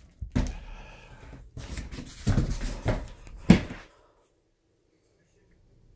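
Handling noise from a cardboard shipping box and the fabric guitar case inside it: rustling and scraping, ending in a thump about three and a half seconds in, then near silence.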